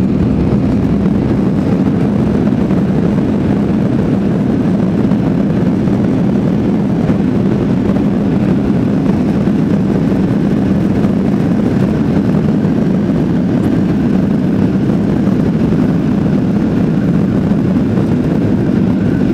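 Steady cabin noise inside a Boeing 737-800 on the ground after landing: its CFM56 jet engines running with a constant low hum, at an even level with no sudden changes.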